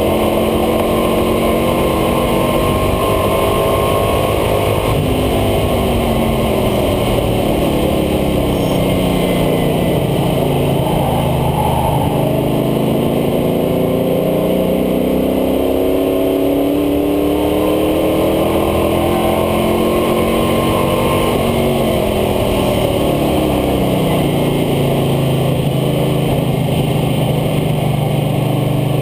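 International Harvester Scout II engine running hard at speed on a race track, heard from a camera on the front air dam: its pitch climbs, drops and climbs again three or four times as the truck accelerates and slows for corners. A steady rush of wind and road noise lies under it.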